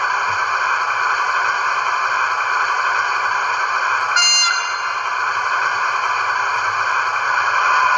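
Sound decoder of a Märklin 39187 BR 218 H0 model diesel locomotive playing its diesel engine operating sound through the model's small loudspeaker: a steady running noise, with a short high tone about four seconds in.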